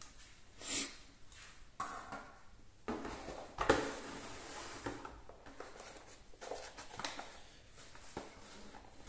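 Cardboard packaging being handled: an inner cardboard tray is slid up out of a carton, with scraping and rustling and a knock a little over three and a half seconds in.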